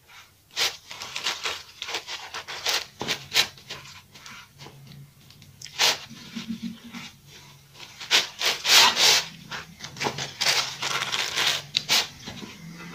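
A pad rubbed back and forth over a silicone mold, wiping on release agent: irregular rubbing and scrubbing strokes, busiest about eight to nine seconds in.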